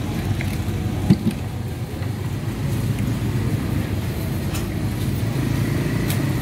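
Steady low rumble of street traffic, with two short sharp knocks about a second in.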